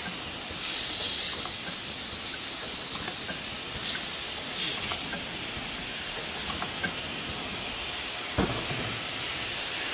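Cellophane overwrapping machine running, with repeated hisses of compressed air from its pneumatic cylinders over steady mechanical noise, and one low thump about eight seconds in.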